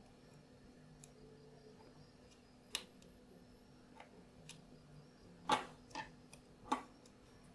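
Utility knife blade cutting leather on a glass plate: faint scraping with a few short sharp clicks, most of them in the second half.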